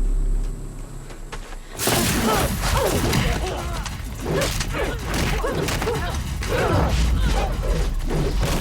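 Action-scene fight sound effects: a low rumble, then from about two seconds in a rapid run of punches, kicks and body thuds with grunts and whooshes.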